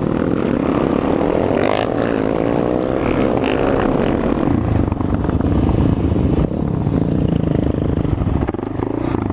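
Suzuki DR650 supermoto's single-cylinder four-stroke engine accelerating under way, its revs rising through the first few seconds, with a brief drop in the revs near the end.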